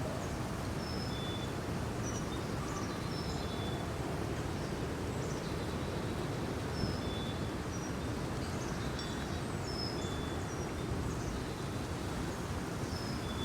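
Outdoor ambience: a steady low background rumble, with small birds chirping over it in short high notes, repeated irregularly.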